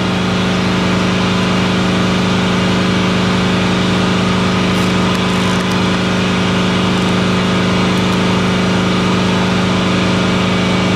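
Steady machine hum holding one low pitch with its overtones, with a few faint clicks over it.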